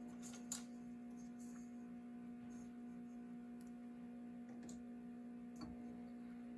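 A faint steady hum, with a few light clicks scattered through it.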